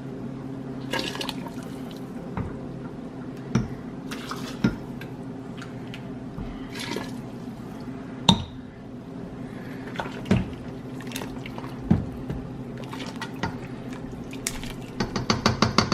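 Broth being ladled into a blender jar and poured back into the pot: liquid splashing and dripping, with sharp clinks of a spoon or ladle against the containers and a quick run of clinks near the end, over a steady low hum.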